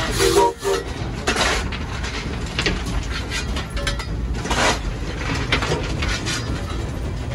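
A steel coal shovel scraping coal off the steel cab deck and pitching it into the firebox of a small 0-4-0 steam tank engine, with several scrapes and clanks about a second apart over a steady low rumble.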